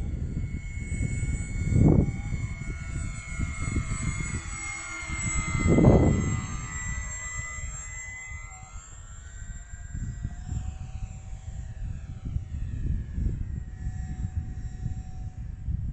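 Radio-controlled model aircraft flying past, its motors and propellers making a steady high whine whose tone sweeps as it goes by. Wind rumbles on the microphone, with two loud gusts about 2 and 6 seconds in.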